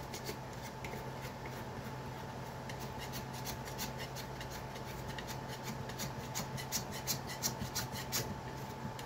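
Palette knife scraping soaked gummed paper tape off a wooden stretching board: a run of quick, irregular scraping strokes, several a second.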